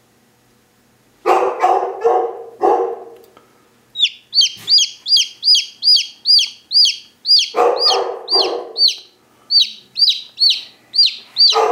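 A newly hatched chicken chick peeping loudly. From about four seconds in, the peeps come in a steady run of about three a second, each one a high note that rises and falls. Short groups of lower, rougher calls come three times, near the start, in the middle and at the end.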